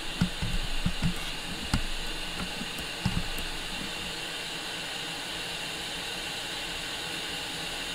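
Steady fan-like hiss of electronics workbench equipment running, with several soft knocks of handling on the bench in the first three seconds.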